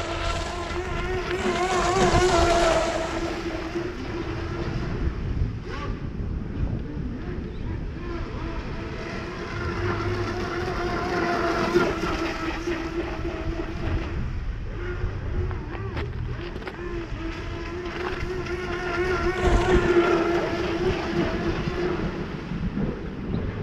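Radio-controlled speedboat's electric motor, running on a 4S LiPo battery, whining at full speed at a steady high pitch. The whine swells and fades three times as the boat makes passes, loudest about two seconds in and again near the end.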